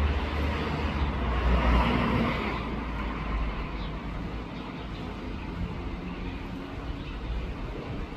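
A road vehicle passing over steady outdoor background noise, growing louder to a peak about two seconds in and then fading away.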